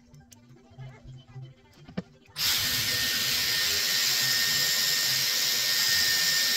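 A Dyson Airwrap Multistyler with a curling barrel is switched on about two and a half seconds in and blows steadily: an even rush of air with a faint steady whine. A single click comes just before it starts.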